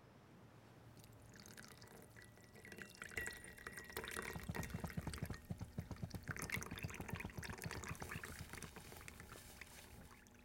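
A drink being poured from a bottle into a glass, the liquid splashing. It starts about a second in, is loudest in the middle and tails off near the end.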